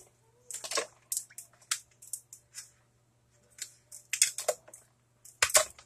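Ice cubes being scooped and dropped into a plastic bowl of water: a string of irregular clinks and rattles with short gaps between them.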